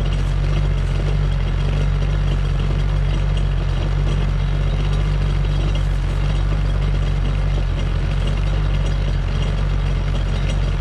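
2007 Kawasaki Ultra 250X jet ski's supercharged four-cylinder engine idling steadily on its trailer, out of the water, while antifreeze mix is pumped through its cooling system during a winterizing flush.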